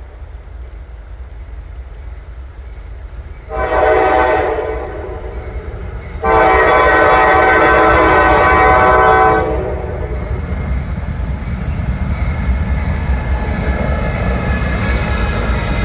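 Diesel locomotive's raised-letter K5LA five-chime horn sounding: a short blast about three and a half seconds in, then a longer, louder blast of about three seconds, over the low rumble of the GE ES40DC diesel. After the horn, the rumble of the train grows louder as it comes by.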